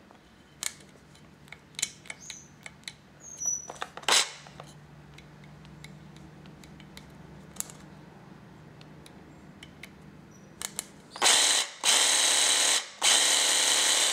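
A Makita 18V brushed cordless jigsaw run with no load, its blade stroking in the air: it is triggered twice near the end, about a second each time with a short break between. Before that, a few light clicks and one louder knock from handling the tool.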